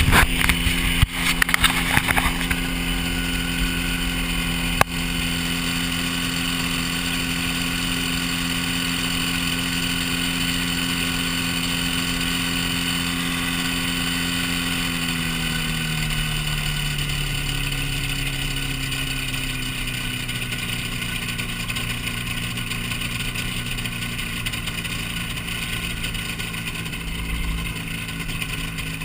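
Hy-Tek Hurricane ultralight airplane's engine running steadily. The engine note drops gradually from about halfway through, as the throttle comes back, then holds at the lower speed. Rough buffeting noise in the first couple of seconds and a single click near the five-second mark.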